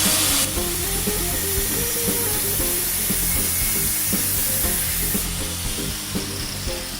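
Background music with a steady hiss over it; the hiss is loudest at the start and eases after about five seconds.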